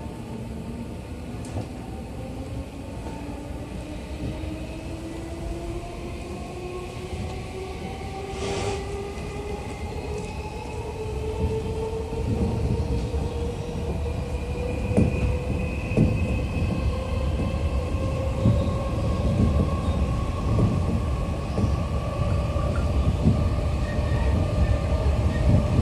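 Odakyu 4000-series electric train heard from inside the car as it accelerates: the inverter-driven traction motors whine, several tones climbing steadily in pitch as speed builds. Beneath them, the rumble of wheels on the track grows louder, and from about halfway through come irregular thumps from the running gear.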